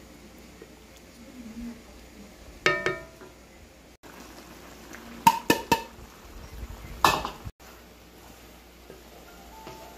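Kitchenware clinking and knocking: a ringing clink about two and a half seconds in, three quick clinks around five seconds in, and a louder clatter about seven seconds in.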